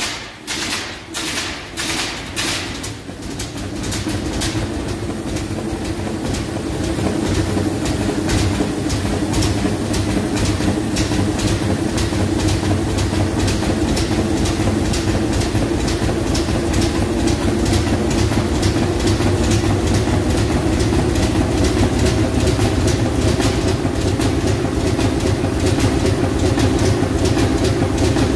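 Large multi-cylinder Fairbanks Morse stationary diesel engine starting up. For the first few seconds it fires unevenly, then it settles into a steady, fast, even exhaust beat and keeps running.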